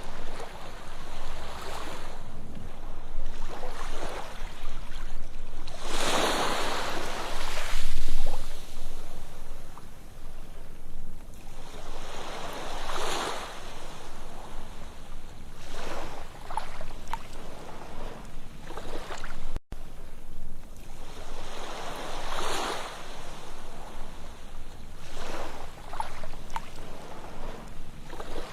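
Ocean waves washing up on a sandy beach, each surge swelling and fading every few seconds, the biggest about six seconds in. A brief dropout in the sound comes about twenty seconds in.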